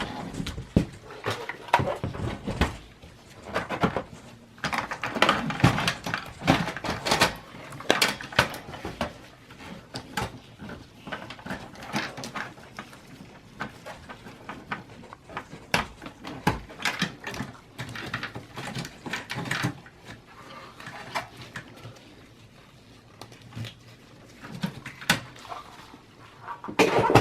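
Irregular clicks, knocks and scrapes of a Dell Optiplex 780 small form factor desktop's metal case and parts being handled during disassembly, as the power supply is unscrewed and worked loose.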